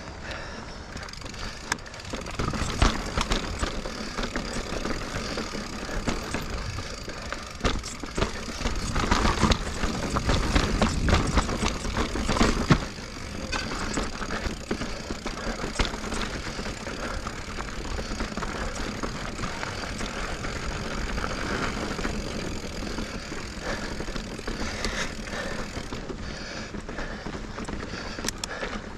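2021 Giant Reign Advanced Pro 29 mountain bike riding over slickrock and packed dirt: tyre rumble with frequent clicks, knocks and rattles from the bike. It gets rougher and louder from about eight to thirteen seconds in.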